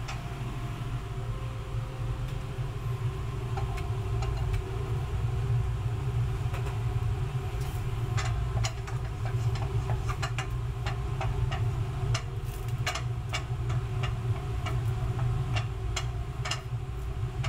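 Garlic cloves frying in hot oil in a stainless pan, stirred with a wooden spatula: a few crackles at first, then frequent sharp crackling from about eight seconds in. Under it runs a steady low rumble of kitchen machinery, louder than the frying.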